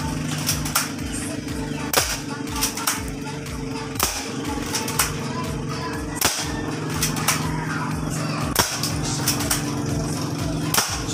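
Airsoft pistol firing single shots at a can, a sharp snap about every two seconds with lighter clicks between, over background music with a steady low beat.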